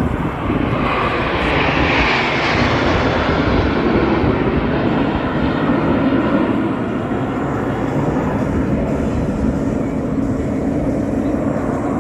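Low pass of Snowbirds CT-114 Tutor jets, a loud jet roar with a high whine that peaks about two seconds in, then falls in pitch as the aircraft pass over and draw away.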